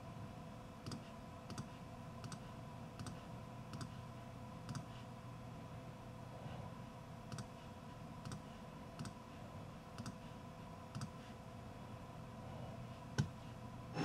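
Faint, irregularly spaced clicks, roughly one a second with a gap in the middle and one louder click near the end, over a low steady hum.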